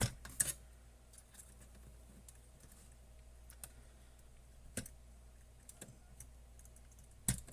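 Scattered light clicks and taps of small parts being handled while an electronic instrument is taken apart: a couple at the start, one about five seconds in, and a louder pair near the end.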